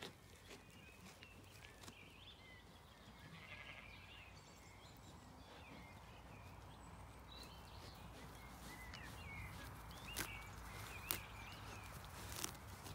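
A Zwartbles sheep grazing close by, tearing grass with a few crisp snaps near the end. Faint birdsong chirps run through the background.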